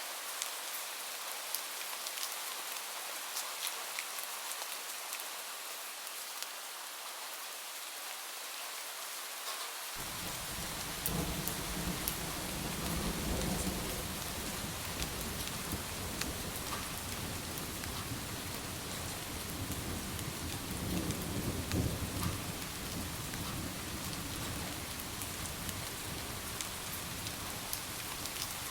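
Steady rain falling, with scattered drop ticks. About ten seconds in, low rolling thunder comes in and swells twice.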